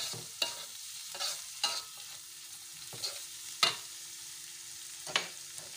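A metal spatula scraping and knocking against a metal wok while stir-frying scrambled egg and dried anchovies, over a steady sizzle. The strokes come in a handful of sharp scrapes, the loudest about three and a half seconds in.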